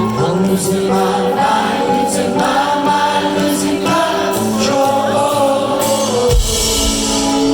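Live rock band playing a song, with singing over the full band. A heavy low thump sounds near the end.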